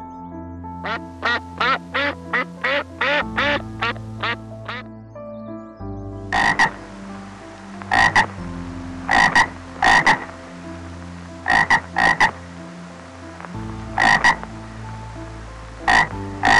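Frog croaking: first a quick run of about a dozen short croaks, several a second, then from about six seconds in, harsher, noisier croaks that come mostly in pairs every second or two.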